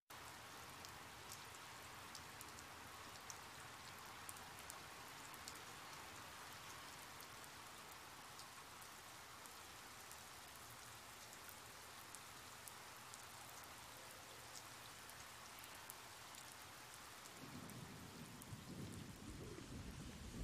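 Steady rain falling, a soft even hiss with scattered drop ticks. A low rumble builds in the last few seconds.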